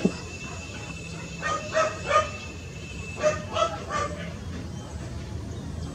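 A bird calling in short, repeated calls, in two groups of three: one about one and a half seconds in and one about three seconds in.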